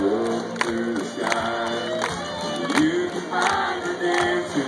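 Live country band playing a section without vocals, with the audience clapping along on the beat and cheering, heard from within the crowd.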